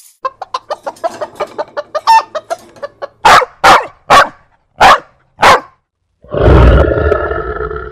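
Stock animal sound effects played back one after another: rapid hen-like clucking for about three seconds, then five loud short calls about half a second apart, then from about six seconds in a loud, rough roar begins.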